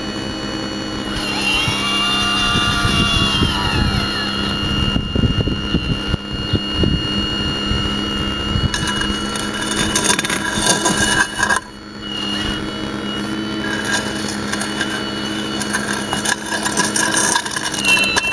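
Radio-controlled model Hitachi hydraulic excavator running: a steady whine from its hydraulic pump and valves, with a pitched tone that rises and falls about a second in as the boom and bucket are worked. Knocks and scraping of rubble are heard in the first half.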